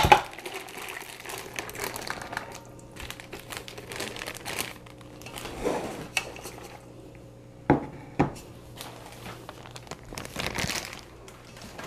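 Zip-lock plastic bag crinkling as raw mutton pieces are tipped out of it into the Ninja Foodi's metal cooking pot, with a few sharp knocks against the pot, two of them close together about eight seconds in.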